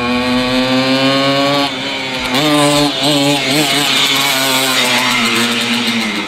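Simson moped's two-stroke single-cylinder engine held at high revs, its pitch steady, dipping just under two seconds in and wavering up and down for about a second before holding steady again, then falling away near the end.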